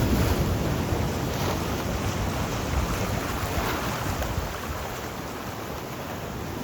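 Sea waves: a steady rush of surf that eases off a little after about four seconds.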